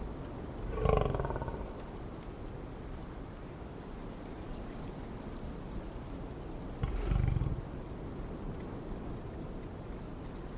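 A large animal growls twice, a pitched call about a second in and a deeper rumble about seven seconds in, over a steady outdoor hiss, with brief high chirping calls in between.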